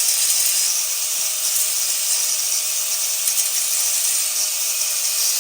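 MIG welder arc running continuously as a steady hiss while welding up a cracked motorcycle exhaust flange.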